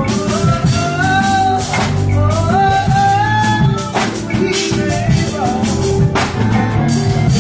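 Live band music: keyboards and drum kit, with a melody line that slides up in pitch over them and regular drum and cymbal hits.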